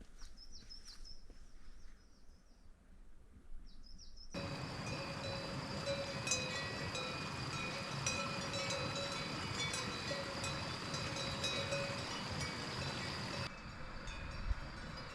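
A few bird chirps, then about four seconds in a dense jangle of many bells ringing together cuts in abruptly, typical of cowbells on a grazing herd. It gets quieter again near the end.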